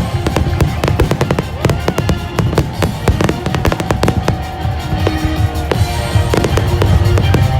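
Aerial fireworks going off in quick succession, a dense run of sharp bangs and crackles, over music from the display's soundtrack.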